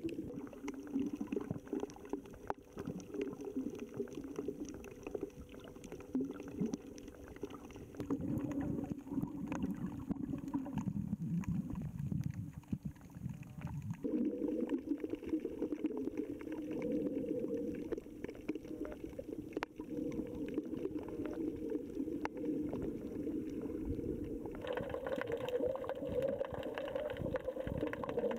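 Muffled underwater noise picked up by a camera held below the surface while snorkelling: low gurgling and water movement. It turns brighter and fuller in the last few seconds.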